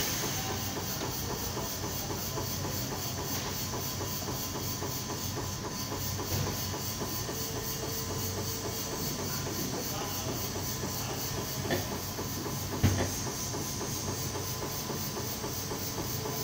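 Steady hiss of compressed air at a tyre-changing machine, with two short sharp clicks near the end.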